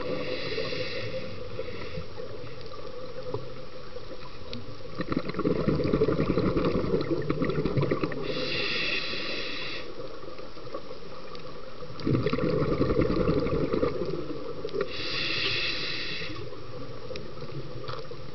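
Scuba diver breathing through a regulator underwater: three hissing inhalations, at the start, about 8 seconds in and about 15 seconds in, each followed a few seconds later by a long bubbling exhalation.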